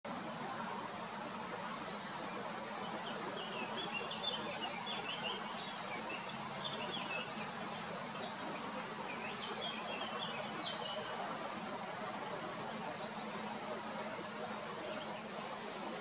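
Lakeside ambience: a high, thin insect-like buzz repeating in phrases of about a second, with scattered bursts of small-bird twittering over a steady background hiss.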